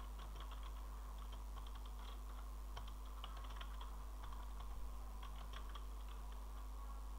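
Computer keyboard typing: irregular, quick keystrokes in short runs with small pauses, over a steady low hum.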